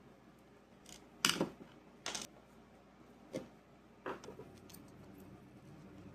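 Handling clatter: a few sharp clicks and knocks of hard parts being moved, the loudest about a second in, then three more spaced about a second apart.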